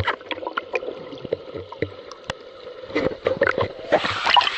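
Swimming heard with the microphone under water: muffled, with scattered sharp clicks and crackles of water and bubbles. About four seconds in the microphone breaks the surface and splashing water sounds open up.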